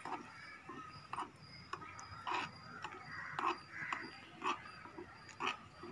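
A crow cawing over and over, about one caw a second.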